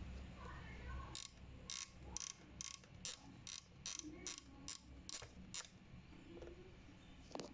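Temperature dial of a Sokany steam iron being turned by hand, clicking through its detents: about eleven sharp clicks, roughly two a second, stopping near the end.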